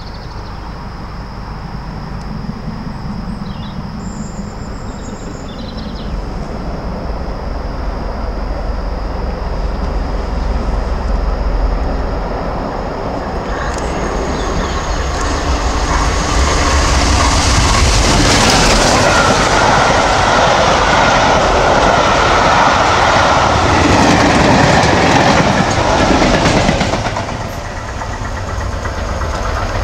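BR Britannia-class Pacific steam locomotive 70013 Oliver Cromwell approaching at speed with its train. The sound builds over about ten seconds to a loud, steady rush of exhaust and wheels on the rails as it passes, then drops off sharply a few seconds before the end.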